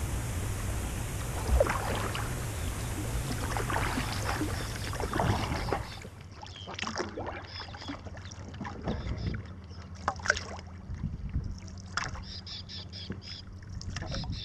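Water rushing and lapping along a kayak's hull close to the waterline, over a steady hiss. About six seconds in this gives way to quieter, separate paddle splashes and drips as the kayak is paddled along.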